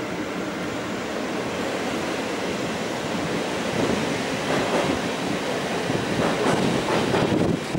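NS double-deck electric passenger train running through the station on the tracks below, its running noise growing louder from about four seconds in.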